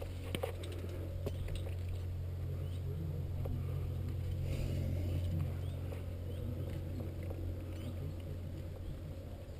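Scuffing, scraping and small clicks of a climber's hands and gear on rock, over a steady low hum.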